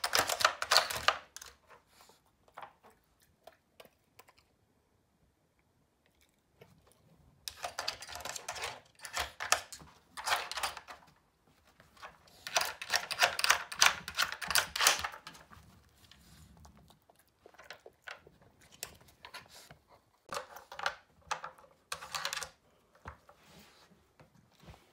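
Plastic pieces of a Nina Ottosson dog puzzle toy clicking and clattering as a small dog noses and paws the sliding blocks and cones, in bursts of rapid clicks. About two seconds in it goes quiet for some five seconds before the clicking starts again.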